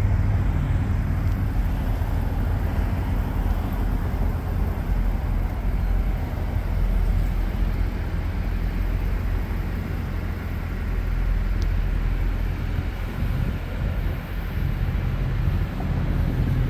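2023 Corvette convertible's V8 idling: a steady low rumble with no revving.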